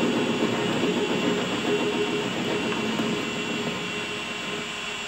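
WM210V bench lathe running and turning a hardened steel stud, with the tool cutting a cone: a steady machine noise that eases off a little over the last couple of seconds.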